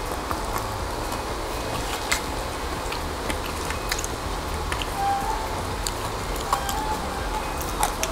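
A person chewing food close to the microphone, with sharp crackles and clicks scattered throughout, over a steady low hum.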